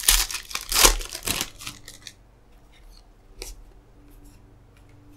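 Foil trading-card pack wrapper being torn open: a few loud crinkly rips in the first two seconds, then quieter handling of the cards with one short click.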